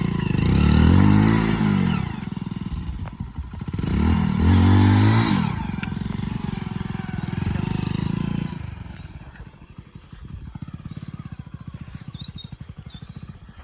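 Hero Splendor Plus motorcycle's small single-cylinder four-stroke engine revved hard twice, its pitch rising and falling each time, then running steadily before dropping much quieter about nine seconds in.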